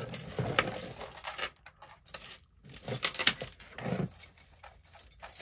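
Tangled metal jewelry chains and necklaces jingling and clinking as they are handled and pulled apart, in irregular light clicks and rustles.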